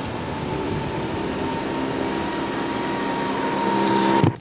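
A moving vehicle heard from on board: a steady rushing road and wind noise with an engine hum that grows a little louder, then cuts off abruptly just before the end.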